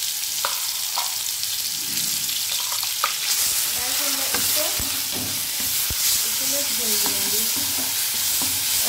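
Ground onion, garlic and green chilli paste sizzling in hot oil in a pan while a spatula stirs and scrapes it, with a few clicks of the spatula against the pan. The sizzle grows louder about three seconds in.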